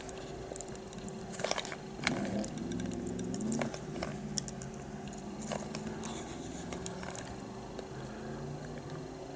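Scattered light clicks and taps of small plastic parts being handled as glue is applied to a bulb and its wires, over a faint steady hum.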